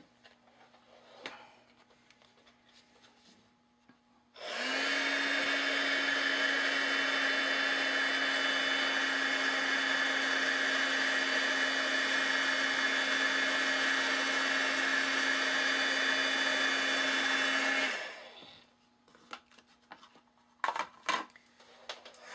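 Embossing heat gun switched on about four seconds in: a steady blowing noise over a constant motor hum that runs for about 13 seconds, then stops. It is melting embossing powder on a stamped greeting. Light paper handling comes before and after.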